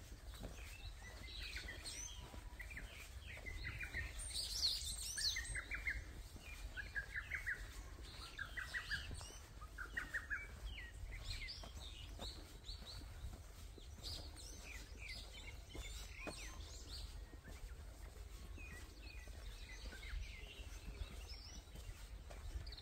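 Several small birds chirping and calling, with one bird repeating the same short call about every one and a half seconds in the first half, over a steady low rumble.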